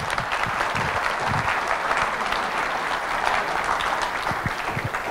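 An audience applauding steadily, a dense patter of many hands clapping at the end of a talk.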